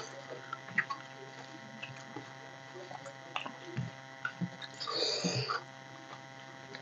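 Eating sounds from two people eating rice with their hands: fingers mixing rice on steel plates, chewing and small mouth clicks, with a louder noisy sound lasting about half a second about five seconds in. A steady electrical hum runs underneath.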